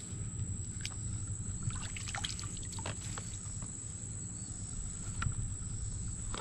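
Steady, high-pitched insect drone over a low outdoor rumble. A few soft clicks and small water splashes come about two to three seconds in, as the water around a floating plastic bag of fish is disturbed.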